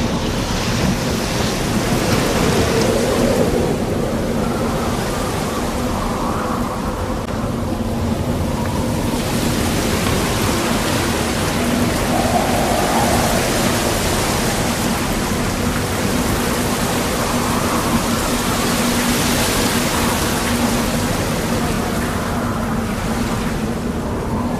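Strong wind rushing over the microphone and choppy water in a storm, a loud steady roar that surges and eases, with a faint steady hum underneath.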